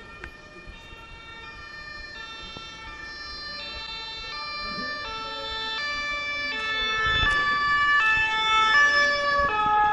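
Emergency vehicle's two-tone siren alternating between two pitches about every 0.7 seconds, growing steadily louder as it approaches. Traffic passes close by, with a low rumble about seven seconds in.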